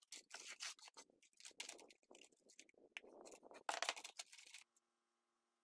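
Mason's trowel scraping over rough cement render at the base of a wall: a run of short, irregular scrapes that stops about four and a half seconds in.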